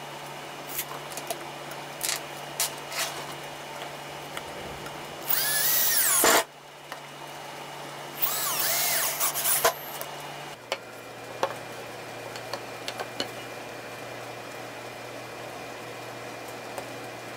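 Cordless drill running into a wooden rail in two short bursts, about a second each, its motor whine gliding up and down. Before them come a few light clicks and knocks from handling.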